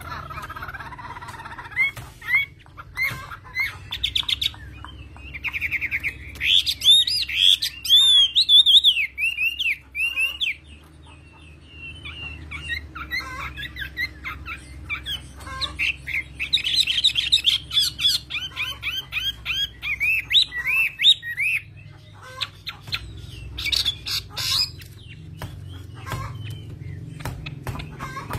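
Caged Chinese hwamei (melodious laughingthrush) singing rich, varied whistled phrases in loud bursts, with a quieter pause in the middle, over a low steady hum.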